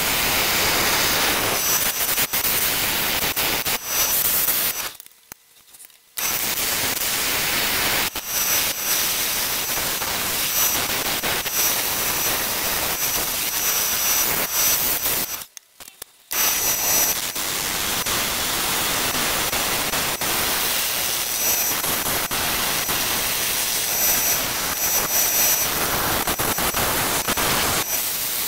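A gouge cutting a red mallee burl bowl spinning on a wood lathe: a loud, steady hiss of wood being sheared away. It breaks off suddenly twice for about a second.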